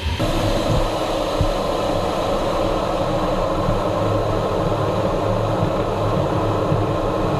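A jet engine running steadily, a loud even roar with a few faint tones held through it.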